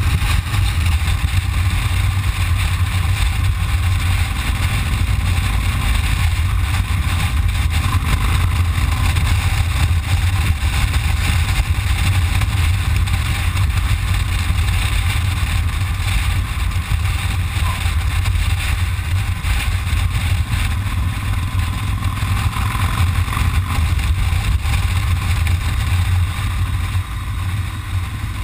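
Cruiser motorcycle riding at a steady cruising speed: a loud, steady low rumble of engine and wind rush on the camera's microphone.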